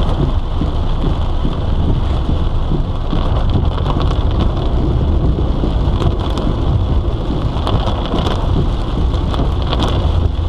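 Heavy monsoon rain pouring down on a car, heard from inside the car: a dense, steady patter of drops over a deep low rumble.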